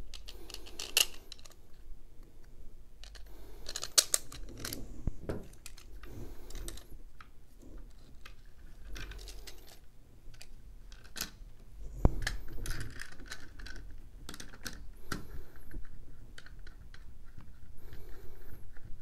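Small plastic meter parts and screws being handled and fitted together by hand: scattered light clicks and taps of plastic, with a sharper knock about 4 seconds in and another about 12 seconds in.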